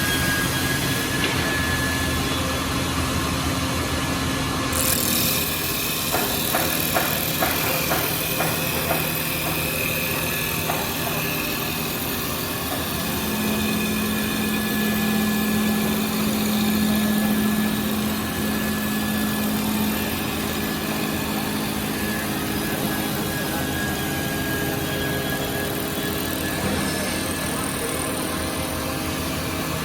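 Automatic CNC wood lathe running, a steady machine hum with several held tones. A run of short clicks comes about six to nine seconds in, and a louder low hum sets in from about thirteen seconds to about twenty seconds.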